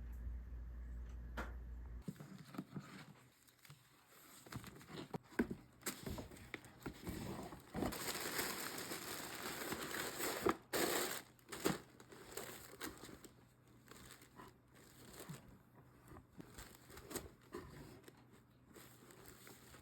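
Paper or plastic packaging being handled: crinkling and rustling with scattered small clicks, busiest and loudest around the middle.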